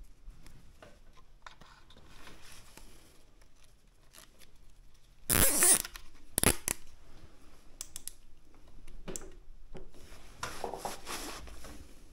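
Plastic cable ties being ratcheted tight and their tails snipped off: a loud zipping rasp about five seconds in, a sharp snip just after, and more rasping near the end.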